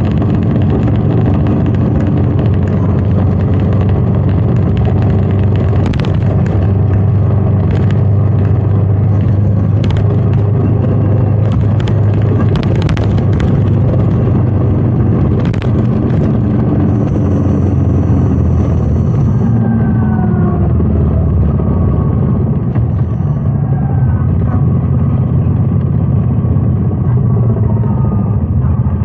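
Royal Enfield Meteor 350's single-cylinder engine running steadily under way, with wind noise, a few short sharp clicks in the first half and a change in its note about twenty seconds in.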